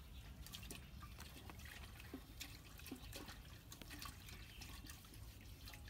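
Faint splashing and trickling of water as a cooking pot is rinsed in a pond, with scattered small clicks and taps.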